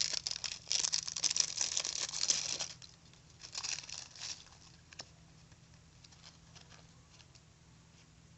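Card-deck packaging handled by hand: crinkling and tearing for nearly three seconds, a shorter crinkling burst about three and a half seconds in, then a few faint clicks.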